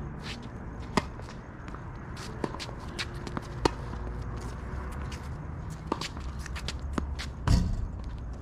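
Tennis rally: sharp pops of racket strings striking the ball and of the ball bouncing on the court, about a dozen in all, with the loudest hit about seven and a half seconds in. A steady low rumble runs underneath.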